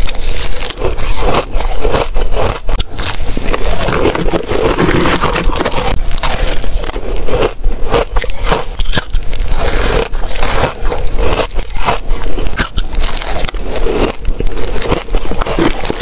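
Close-miked biting and chewing of compacted freezer frost, a dense, uneven run of crisp crunches and crackles.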